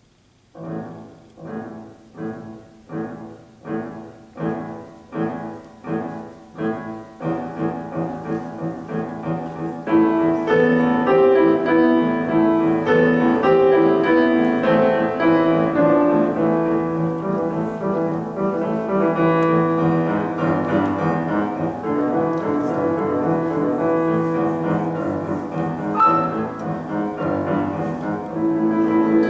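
Solo grand piano playing a Romantic-style setting of a Zuni dance melody. It opens with steady repeated chords, about three every two seconds, that grow louder. About ten seconds in, a louder melody enters over the sustained bass.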